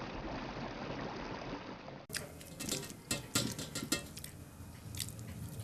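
A steady rushing noise of running water, cut off abruptly about two seconds in by close, wet mouth sounds of someone eating with their fingers: sharp lip smacks and clicks, irregular and several in a row.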